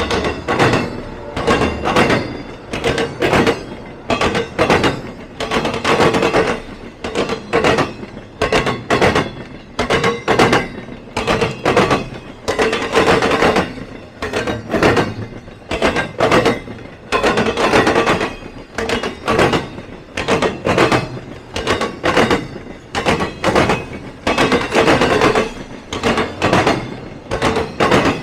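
Train wheels banging over a railroad diamond crossing: a long run of sharp, loud clacks in repeating groups as each set of wheels crosses the gaps in the rails.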